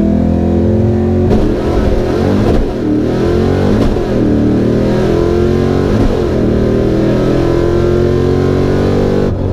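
Fox-body Mustang V8 drag car making a full-throttle pass, heard from inside the cabin: the engine pitch climbs and falls back at each upshift of the manual gearbox, with a brief drop near the end.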